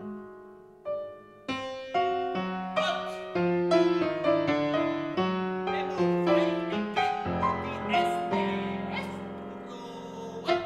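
Solo piano playing avant-garde music: a few separate struck notes, then from about a second and a half in a dense stream of notes and chords that keep ringing over one another, thinning out and fading away near the end.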